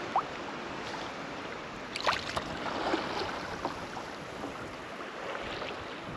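Kayak paddling on choppy open water: paddle blades splashing over a steady rush of water and wind, with wind buffeting the microphone. A few sharper splashes come about two seconds in.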